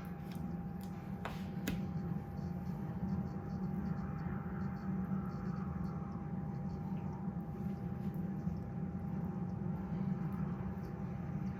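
A steady low mechanical hum with a constant thin high whine, as from a running household appliance, with two light clicks just over a second in.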